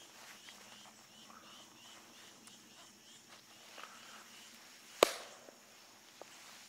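Faint outdoor quiet with small animal chirps repeating about three times a second for the first few seconds, then one sharp click about five seconds in.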